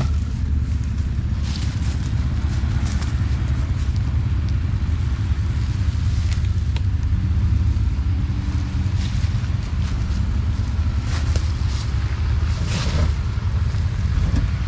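Off-road vehicle engine running steadily with a low rumble, with scattered knocks and clatter.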